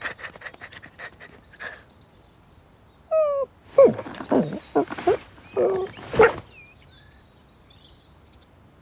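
Cartoon cat vocal sounds: a handful of short meows and chirrups, sliding up and down in pitch, in the middle stretch. Small birds twitter faintly before and after them.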